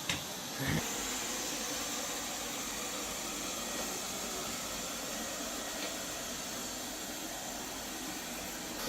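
OKP Life K2 robot vacuum cleaner running, its suction fan and brushes giving a steady hiss. A short knock and another brief sound come within the first second.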